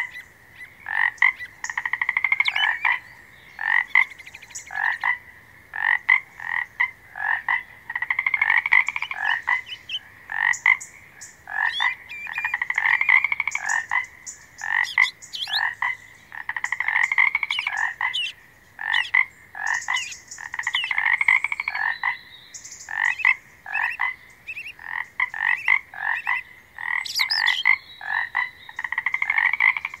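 Frogs croaking in a chorus that repeats about once a second, with short sharp croaks among longer rapid pulsed trills that last about a second each.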